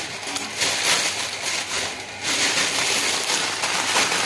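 Dry brown vermicelli (seviyan) being crushed into fine pieces, a dense crunching crackle that breaks off briefly about two seconds in.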